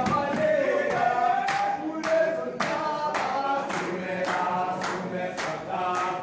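A group singing in chorus, with sharp percussive hits about twice a second from dancers in gumboots.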